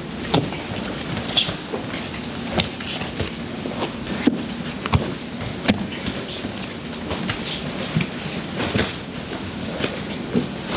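Irregular sharp thuds and slaps of judo throwing drills on tatami mats, about one a second: bare feet stepping in and gi and bodies striking as throws are entered.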